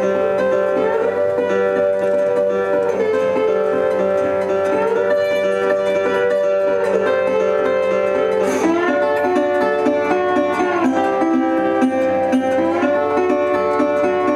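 Acoustic guitar played as an instrumental passage of a folk-blues song, with notes sliding up into pitch every couple of seconds and a wider slide a little past the middle.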